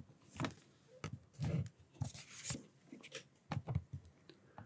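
Digital pen writing on a tablet: a scatter of short, quiet scratches and taps as formula characters and an underline are drawn.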